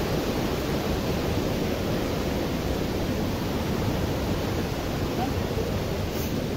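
Steady rushing of a fast-flowing mountain stream, an even roar of water with no breaks.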